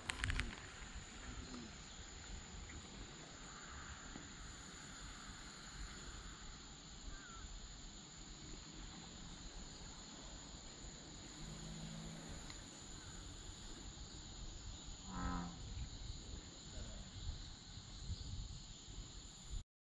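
Faint, deep, moo-like calls of an American bullfrog: one drawn-out call about eleven seconds in and a shorter pulsed one about fifteen seconds in, over quiet outdoor ambience with a thin steady high tone.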